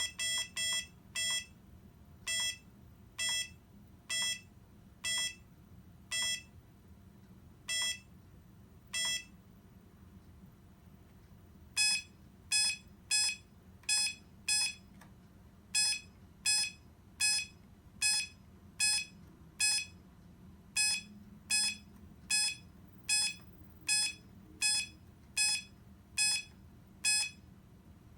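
Short electronic beeps from an LED matrix controller board's buzzer. A slowing series of lower-pitched single beeps gives way, after a pause of about three seconds, to a steady run of slightly higher-pitched beeps, a little under two a second.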